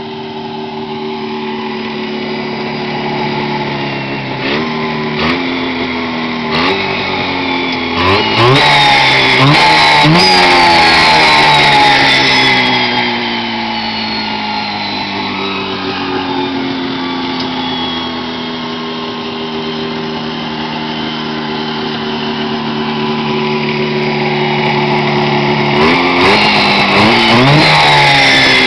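Bored and ported Cuyuna 440 two-stroke twin engine with a 36mm Mikuni carburetor, revved while stationary. It idles, then takes quick throttle blips from about four seconds in and holds at high revs for a few seconds. It then falls slowly back to idle and is revved again with more blips near the end.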